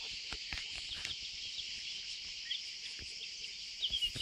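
Steady high-pitched chorus of insects in a grassy meadow, with a few faint ticks, and a few short bird chirps near the end.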